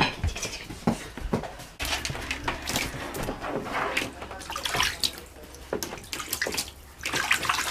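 Water splashing in a bathtub, with irregular knocks and splashes over a steady low rumble of running water that starts about two seconds in.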